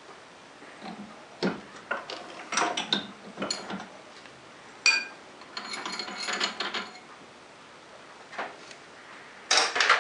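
Metal clicks and clinks from a chuck key being fitted and turned in a four-jaw lathe chuck, setting the jaws on a steel workpiece. There is one sharp ringing clink about five seconds in, followed by a second or so of light metallic ringing, and a few more quick clicks near the end.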